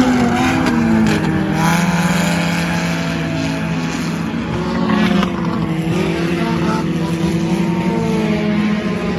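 Four-cylinder sport compact race cars racing. The engines rise and fall in pitch as they rev through the laps. One car runs close by near the start, and its note drops as it passes.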